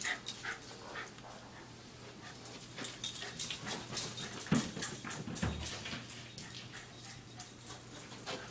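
Small dog making short vocal sounds while playing fetch with a ball, among scattered short knocks and a faint steady low hum.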